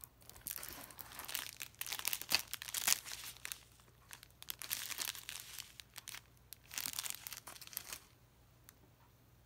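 Plastic packaging crinkling as a diamond-painting canvas in its clear plastic sleeve and a strip of sealed drill packets are handled, in several bouts. It goes quiet about eight seconds in.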